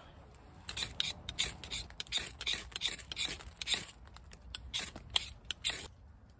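A rapid run of sharp metal scrapes, a striker drawn again and again down a fire-lighting rod to throw sparks into a tinder bundle of dry twigs, about three or four strokes a second. The strokes start about a second in and stop shortly before the end.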